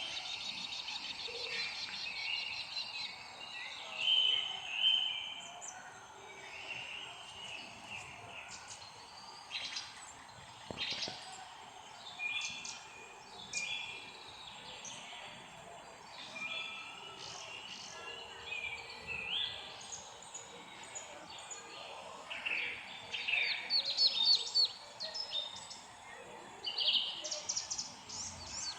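Several birds chirping and calling over a steady faint background hiss, with bursts of quick repeated notes near the end.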